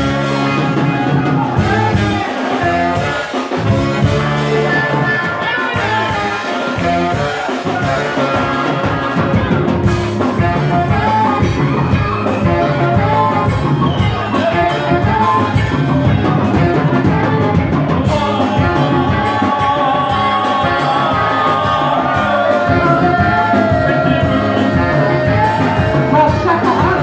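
Live band music with a male singer, backed by saxophones, electric guitars, keyboard and hand drums over a steady beat.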